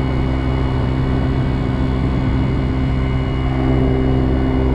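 Kymco Agility 50 scooter's 50cc engine running steadily at cruising speed, with a steady engine note and growing a little louder about three and a half seconds in.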